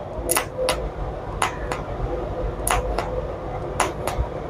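TIG welding arc on stainless steel tube, from a stick welder's TIG function: sharp clicks in pairs about every second and a quarter as the torch is pressed on and off, over a faint steady hum.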